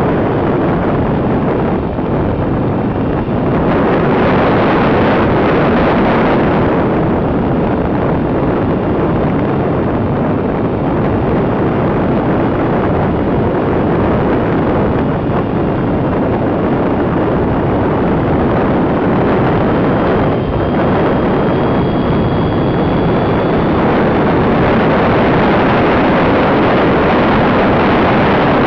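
Loud, steady rush of wind buffeting the microphone of a camera on the tail of a radio-control model plane in flight. A faint high motor whine sits under the wind and rises slightly in pitch about three-quarters of the way through.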